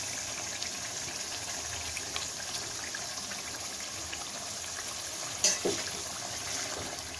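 Thick tomato-and-butter gravy simmering in a metal pot, a steady sizzle with small pops. A single sharp knock about five and a half seconds in is the loudest sound.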